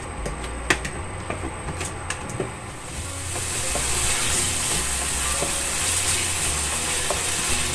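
Black bean chili sauce sizzling in a stainless steel pan while a wooden spatula stirs and scrapes it, with light knocks of the spatula against the pan. About three seconds in the sizzle gets louder and stays steady.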